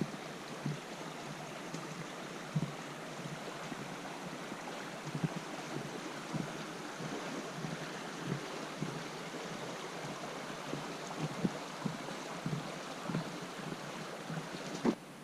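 Steady rush of flowing river water, with soft irregular thumps over it. The sound cuts off abruptly just before the end.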